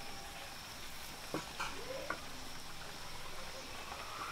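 Pooris frying in hot oil in an iron kadhai, a steady sizzle with a few faint clicks.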